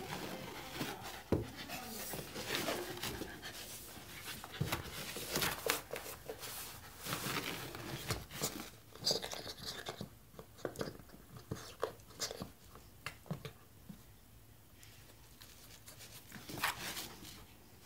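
Shiba Inu pawing and scrabbling under a low shelf after a toy: rapid scratches and scrapes of claws and paws on carpet and wood, with small knocks. Busiest in the first half, then quieter, with one more flurry near the end.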